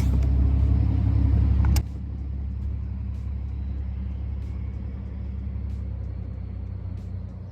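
Boat motor running with a steady low hum; about two seconds in it drops sharply in level with a click, then carries on quieter and even.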